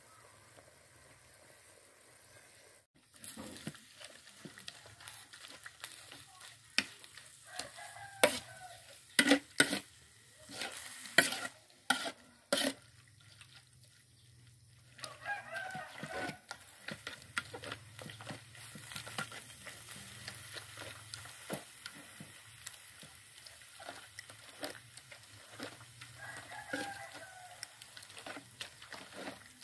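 A metal spoon scrapes and clanks against a metal wok as chopped duck meat is stir-fried over a fire, with sizzling, in a run of sharp knocks that is loudest near the middle. A rooster crows about three times in the background.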